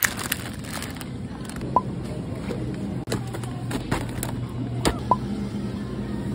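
Supermarket background: a steady low hum with plastic food packaging crackling and clicking as it is handled, and three short high beeps spaced through it.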